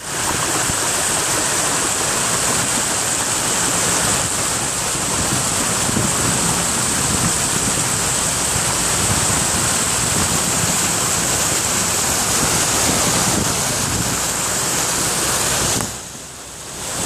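Steady rushing wash of a vehicle driving through floodwater, heard through an open window. It drops away for about a second near the end, then comes back.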